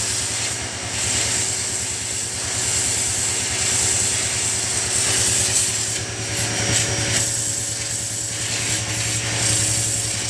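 Pressure washer running, its jet of water spraying directly onto a motorcycle chain: a steady rushing hiss over the washer's constant low hum.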